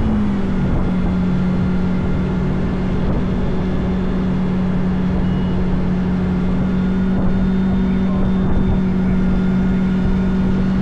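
Engine running steadily, a constant hum over a rumble, easing slightly lower in pitch within the first second.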